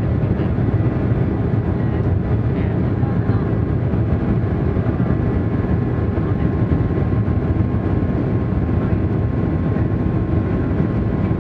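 Steady drone of a jet airliner's engines and airflow heard inside the cabin while the plane taxis, with a faint steady whine over it.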